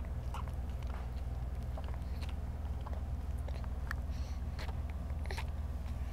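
A baby gumming and chewing on a teething biscuit: small, irregular mouth clicks and smacks, over a steady low hum.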